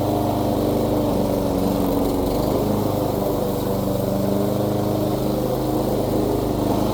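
Lawn mower's small petrol engine running steadily.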